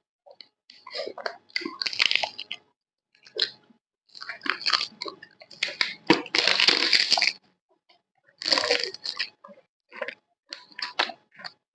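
Close-up crunching and chewing of crisp fried snacks such as papad and fritters, in repeated bursts of bites, the longest and loudest about six to seven seconds in.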